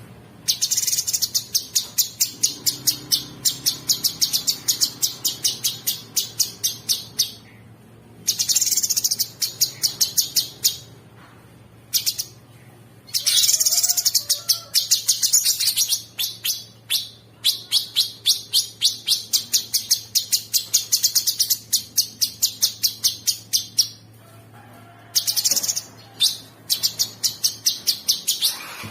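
Cucak sungkok songbird singing a rapid, rattling machine-gun-like trill ('ngebren'), high notes repeated very fast in runs of several seconds with short pauses between. A faint steady low hum lies underneath.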